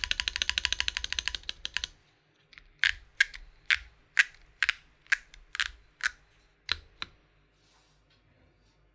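Custom 60% keyboard with Geon Raptor HE v2 Hall-effect switches, a carbon fibre plate and KAP keycaps being typed on: a fast run of rapid keystrokes for about two seconds, then about a dozen slower single key presses, roughly two a second, stopping some seven seconds in.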